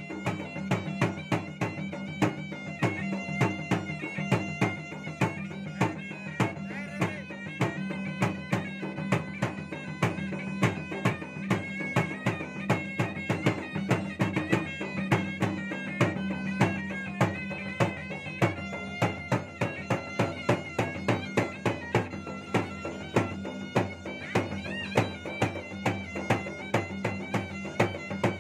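Makassarese gendang ensemble playing: two barrel drums beaten in a fast, steady rhythm under a long wind pipe carrying a winding melody.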